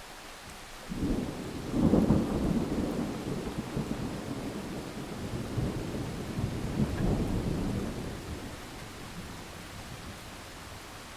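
Rolling thunder over steady rain: a rumble breaks about a second in, peaks around two seconds, swells again near seven seconds and dies away by about eight seconds, leaving the rain hiss.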